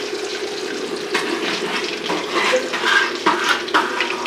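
Chicken pieces deep-frying in hot oil in an aluminium kadai: a steady sizzle under a low hum, with scattered crackling pops from about a second in.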